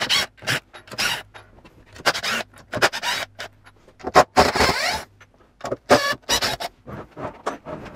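Cordless drill-driver running in short bursts to back screws out of a wooden mould frame, with a few longer runs of about a second and knocks and scrapes in between.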